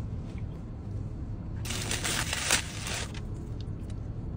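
Paper burger wrapper rustling and crinkling for about a second and a half, a little over a second in, as the burger is unwrapped and opened by hand, over a steady low hum.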